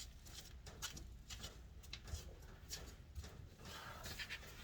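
Faint, scattered light clicks and taps of metal tools and parts being handled, about a dozen irregular ticks over a few seconds.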